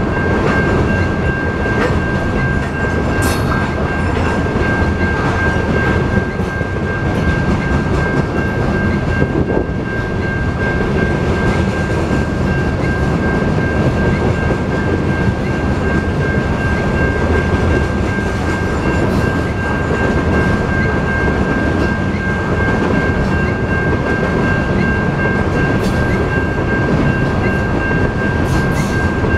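CSX freight train of covered grain hoppers rolling steadily past a grade crossing: a continuous rumble of steel wheels on the rails, with a few sharp clanks. Over it the crossing's warning bell rings on one steady high note.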